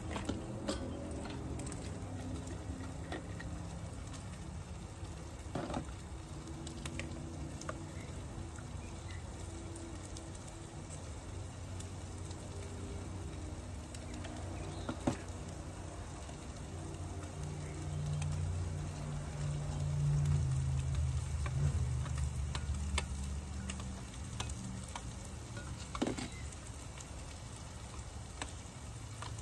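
Corned beef and roast beef hash sizzling in a frying pan on a portable gas stove, with scattered small clicks. A low rumble swells for a few seconds past the middle.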